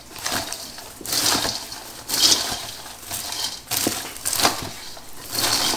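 Popcorn being stirred and tossed with wooden spoons in a large stainless-steel bowl as it is coated in melted white chocolate. It gives a crunchy rustling that comes in irregular surges, about one a second.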